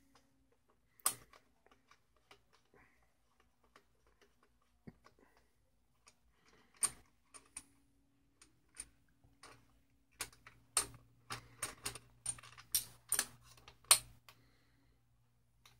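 Irregular sharp metallic clicks of an Allen-bit socket on an extension working a bolt on a turbo discharge pipe. They are sparse at first and come thicker in the last few seconds.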